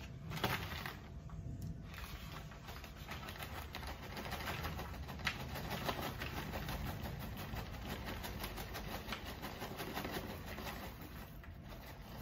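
Microwave popcorn poured out of its paper bag onto a plate: a dense run of light clicks and rustling as the popped kernels tumble out and the bag crinkles.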